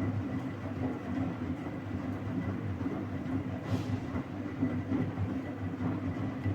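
Vintage Philco L54RX washing machine running its wash cycle: a steady mechanical rumble with a constant hum.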